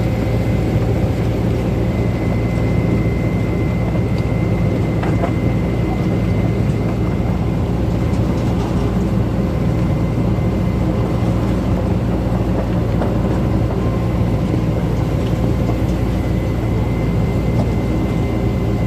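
Excavator's diesel engine running steadily at a constant speed, with a faint steady high whine above it.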